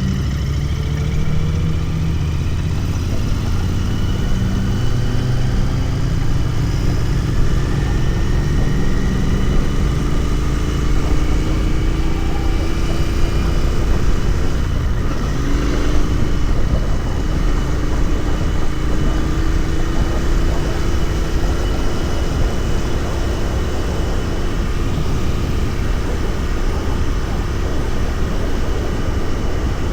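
Royal Enfield Continental GT 650's parallel-twin engine running under way, its note climbing slowly as it pulls, dropping about halfway through and climbing again, over a steady rush of wind and road noise.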